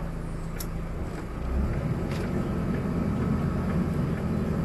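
Resort boat's engine running steadily, growing louder about a second and a half in.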